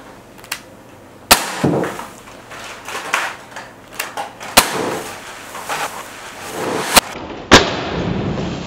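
Umarex Glock 19 non-blowback CO2 BB pistol firing a string of single shots, each a sharp pop, about half a dozen spaced one to three seconds apart, with BBs striking aluminium drink cans.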